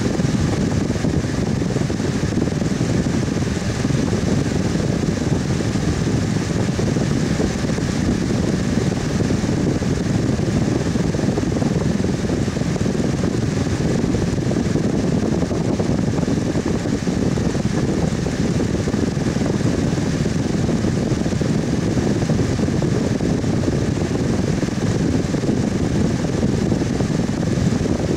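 Electric fan running steadily: a constant whooshing rush of air, strongest in the low range, with a faint steady hum.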